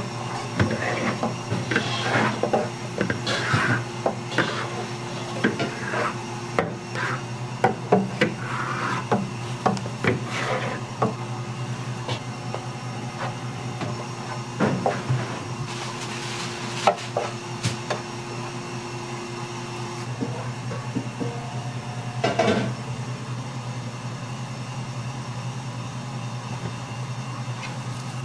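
A plastic scraper and gloved hands working rice flour in a stainless steel tray: scraping, with frequent clicks and knocks against the metal, busiest in the first dozen seconds and then only now and then. A steady low hum runs underneath.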